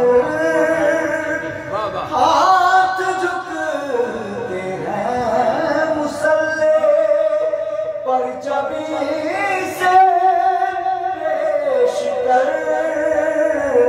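A solo male voice singing Urdu devotional verse in long, held, wavering notes, amplified through a microphone.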